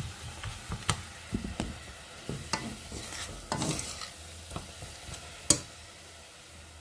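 Metal spoon stirring and scraping thick mashed fava beans (ful medames) in a stainless-steel pot, knocking irregularly against the pot, over a steady sizzle from the hot pan. A last, loudest sharp knock comes about five and a half seconds in, and then only the sizzle goes on.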